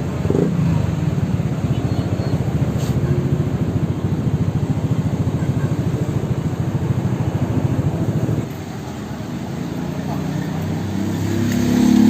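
An engine running with a rapid, even low pulsing that cuts off suddenly about eight seconds in.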